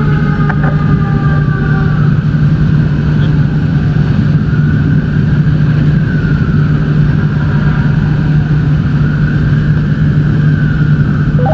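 A fire engine's motor drones steadily. Above it, a siren wails, its pitch slowly rising and falling every few seconds.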